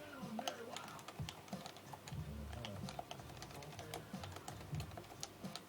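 Happy Hacking Keyboard Professional 2 with Topre switches being touch-typed: a fast, irregular run of key clicks, several a second.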